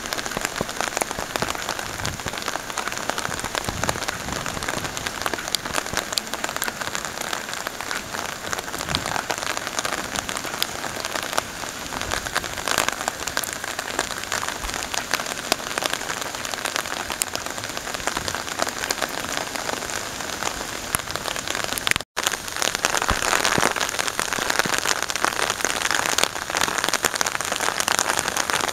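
Steady rain: a dense hiss of close, pattering drops, breaking off for an instant about two-thirds of the way through.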